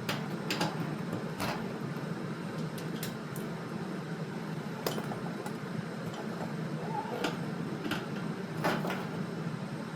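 Scattered light clinks and knocks of metal hardware being handled, about eight in all, over a steady low hum.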